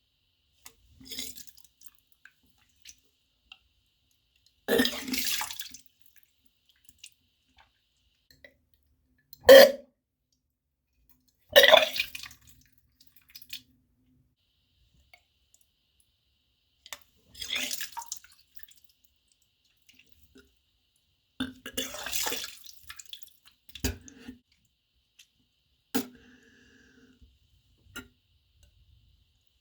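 A person burping, about eight separate burps a few seconds apart, the sharpest and loudest about ten seconds in. The burps come from a stomach overfull of carbonated soda drunk on top of a full meal.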